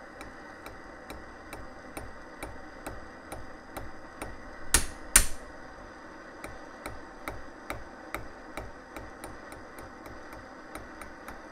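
Torch flame hissing steadily on a revolver trigger held in a vise, with two sharp hammer taps on the hot steel about half a second apart near the middle. The taps are hot-bending the trigger nose down so it does not crack. A faint regular ticking runs underneath.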